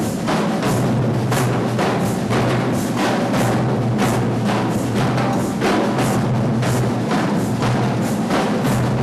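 Drums playing a steady, driving rhythm, with strikes about three a second over a sustained low drum tone.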